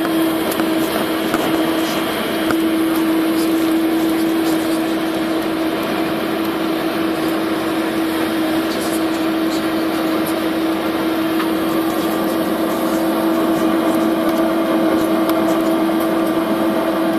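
Cabin noise inside a Tupolev Tu-204 airliner as it taxis: the engines at idle give a steady hum with one strong held tone over an even rush of air.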